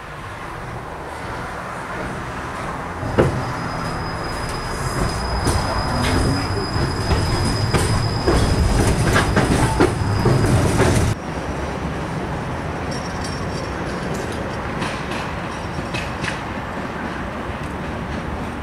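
Running noise inside a 71-933 "Lev" low-floor tram, growing louder as it picks up speed, with a high steady wheel squeal and scattered clicks from the rails. About eleven seconds in, it cuts abruptly to the tram heard from outside, quieter, with a few faint squeals and clicks.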